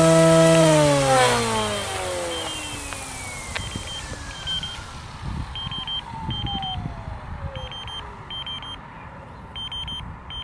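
SAB Goblin Fireball electric RC helicopter's motor and rotor spinning down after landing: a steady whine that, a little under a second in, starts to fall in pitch and fades away over several seconds. Short electronic beeps in pairs repeat about every second or so.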